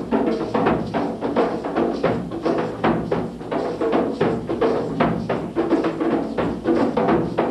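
Percussion music: drums struck in a fast, steady rhythm, with pitched tones under the beat.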